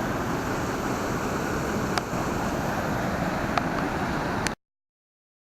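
Steady rush of high water pouring over a spillway, swollen with snowmelt, with a couple of faint clicks; it cuts off suddenly about four and a half seconds in.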